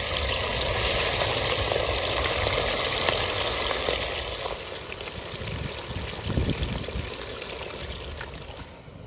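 Raw chicken pieces sizzling as they go into hot desi ghee and whole spices in a clay handi: a loud, steady sizzle that dies down about halfway through.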